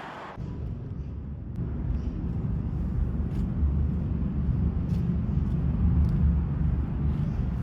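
Strong wind buffeting the microphone: a loud, deep rumble that sets in sharply about half a second in and holds, with little high sound above it.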